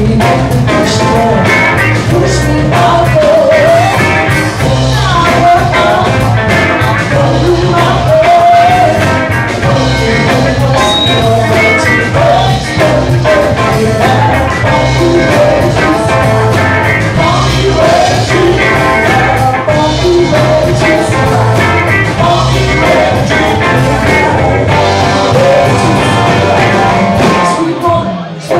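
Live blues band playing: a woman sings lead over drums and electric guitars, with a steady bass line underneath.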